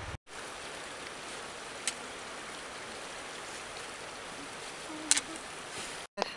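Steady outdoor hiss on a mountain path with two sharp clicks, about two seconds in and about five seconds in, typical of trekking pole tips striking rock. The sound drops out briefly just after the start and again near the end.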